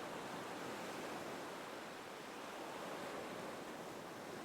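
Gentle ocean waves washing on a shore, a soft steady surf that swells and eases slightly.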